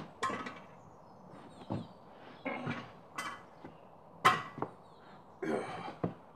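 Heavy steel 3D printer frame, built of 10 mm steel plate and 3 mm box section, knocking and clanking in a string of separate thuds as it is tilted and walked across wooden decking. The sharpest and loudest clank comes a little past the middle.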